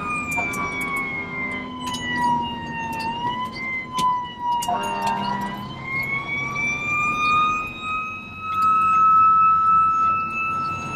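Fire engine siren wailing: its pitch falls over the first few seconds, dips again, then rises back up and holds steady. A lower, brassy tone sounds briefly twice under it.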